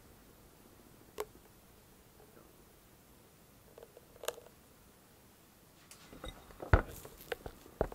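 Quiet kitchen room tone with a couple of soft clicks as blackberry puree is poured from a small dish onto whipped yogurt cream in a glass bowl. Near the end comes a sharp knock, the loudest sound, followed by light clinks and a second knock as dishes and a spatula are handled on a wooden table.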